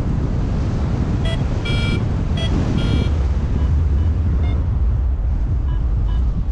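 Airflow buffeting the camera microphone of a paraglider in flight: a steady low rumble. Over it, a flight variometer gives a scattered run of short electronic beeps, clearest in the first half and fainter later; such beeps signal that the glider is climbing.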